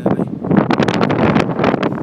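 Strong gusty wind buffeting the microphone, a loud rough rumble that comes and goes in quick gusts.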